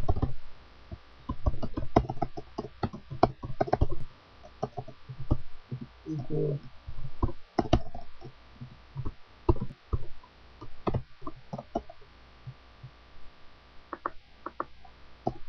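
Typing on a computer keyboard: irregular runs of key clicks, over a faint steady electrical hum.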